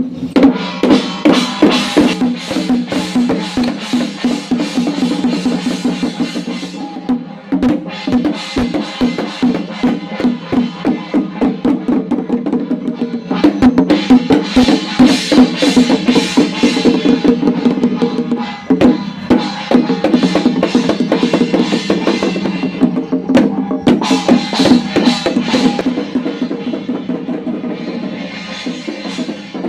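Traditional Chinese temple ritual percussion: fast, continuous drumming with bright metallic clashes over a steady held tone. It eases briefly about seven and nineteen seconds in, then picks up again.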